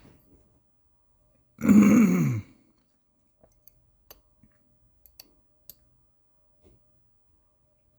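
A man's short wordless vocal sound, falling in pitch, about two seconds in, followed by a few faint, scattered clicks of a lock pick working the pins of a lock.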